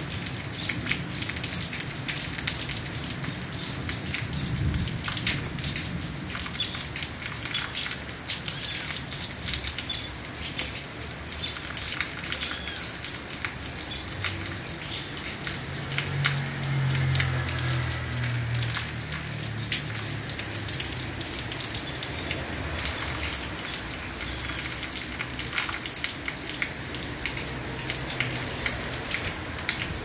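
Steady rain falling, a dense patter of drops and dripping water. A few short bird chirps sound now and then over the rain.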